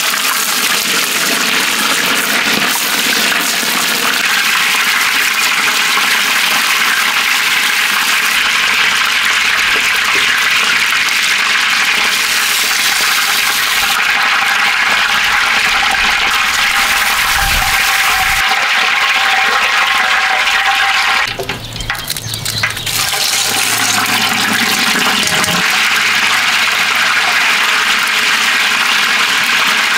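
Whole chickens deep-frying in hot oil in a cast-iron cauldron, a loud, steady bubbling sizzle. It dips briefly about two-thirds of the way through, then carries on as the chicken is fried a second time.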